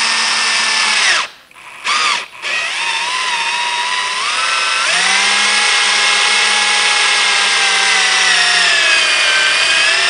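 Cordless drill's motor whining at low speed as it drills and taps a thread into a plastic waste pipe. It stops about a second in, gives a short burst, then starts again, rises in pitch around four to five seconds in and runs steadily.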